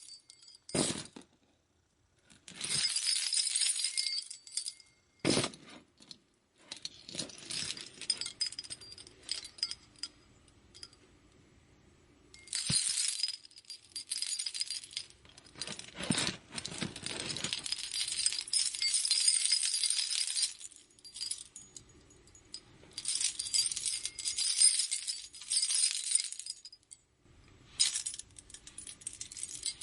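Jewelry jiggled in the hand, metal pieces jingling and clinking together in irregular bouts, some brief and some several seconds long, with short pauses between them.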